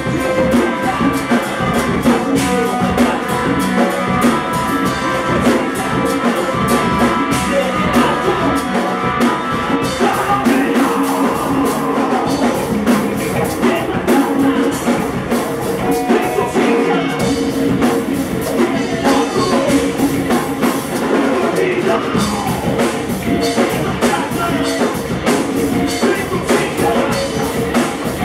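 Live rock band playing: distorted electric guitar, bass guitar and drum kit, with congas and timbales, and a male vocalist singing into a microphone. The music runs steady and loud without a break.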